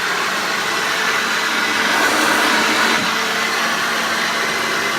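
Hoover Junior 1334A upright vacuum cleaner (c1962) running steadily, a motor whine over rushing air.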